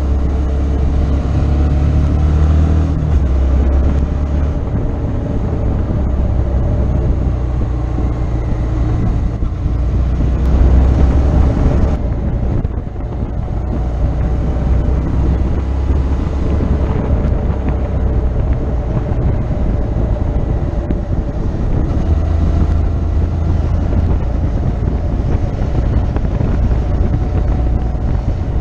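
Motorcycle engine running under way, its note rising and falling with the throttle, over heavy wind buffeting on the microphone. The level dips briefly about twelve seconds in.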